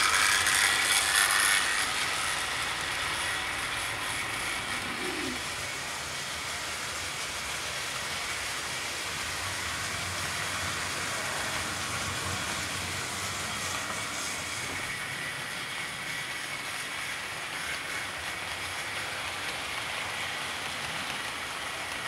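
OO gauge model train, a Bachmann City Class 4-4-0 locomotive hauling ambulance coaches, running along the track with a steady running noise of motor and wheels on rails. It is loudest for the first couple of seconds as the locomotive passes close by, then stays even.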